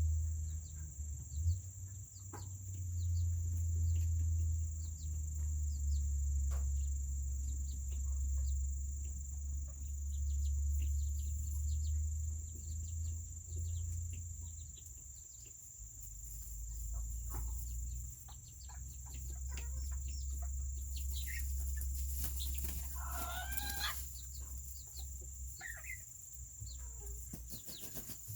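Serama chickens: a small rooster crows once, a wavering call of about two seconds roughly three-quarters of the way through, followed by a short call. Scattered light ticks and a steady low rumble run underneath.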